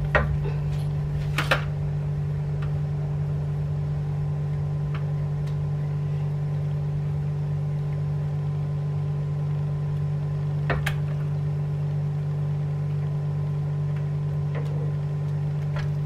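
Steady low hum of a running kitchen appliance. Over it come a few sharp knocks of a metal ladle against a stainless-steel pan as thick batter is scooped out: two in the first two seconds and one near the eleven-second mark.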